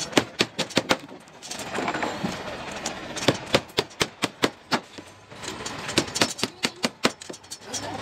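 Sharp hammer-like knocks in quick runs of several blows, about three a second, with people talking between the runs.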